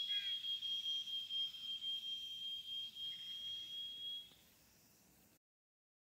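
Whistling arrow with a brass whistle tip, flying upward after leaving a compound bow: one steady high whistle that fades as the arrow climbs away and dies out about four seconds in.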